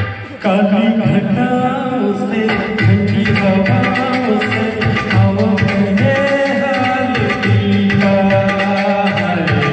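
A Hindi film song sung live into a microphone by a man over recorded accompaniment with a steady tabla beat. The music drops out briefly right at the start, then carries on.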